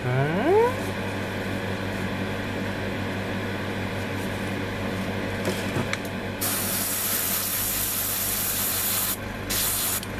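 Airbrush spraying paint in two bursts: a hiss of about three seconds starting past the middle, then a short one near the end. A steady hum runs underneath, and a brief rising tone sounds just after the start.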